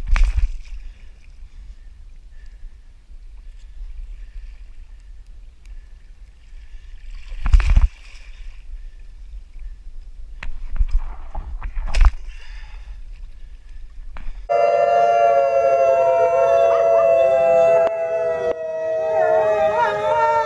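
Wind buffeting the microphone and a kayak paddle splashing in the sea, with a few loud splashes. About two-thirds of the way in this cuts to an arctic wolf howling: long, slowly gliding howls, several voices overlapping.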